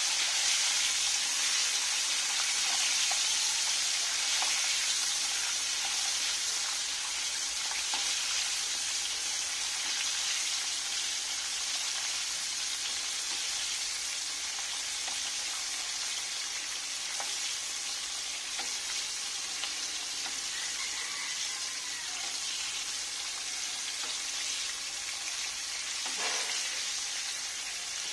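Oil sizzling steadily in a wok as a whole red tilapia deep-fries.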